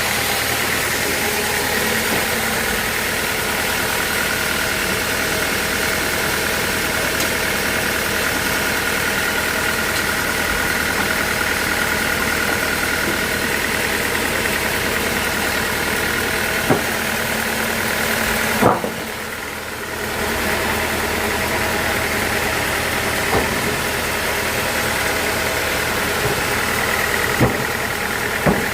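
Engine-driven sawmill machinery running steadily, with a few sharp knocks and a brief dip in level just after one of them.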